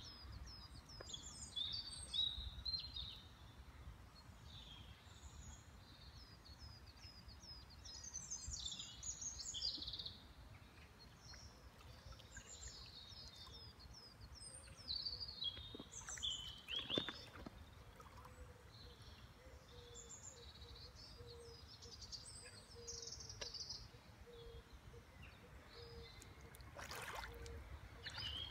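Small songbirds singing and chirping, many short rising and falling notes, over a low rumble.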